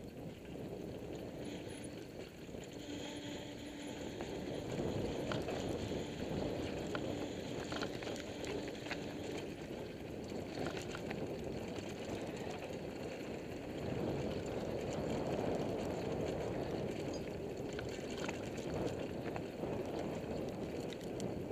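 Mountain bike rolling downhill on a dry dirt and loose-rock trail: a steady rumble of tyres on the dirt with frequent clicks and rattles from the bike over the rough ground. It gets louder about five seconds in and again at about fourteen seconds.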